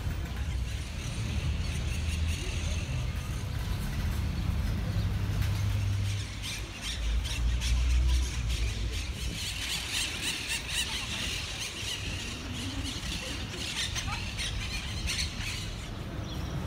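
City park ambience: a low rumble of traffic and wind, with a dense chatter of birds chirping and squawking through the second half.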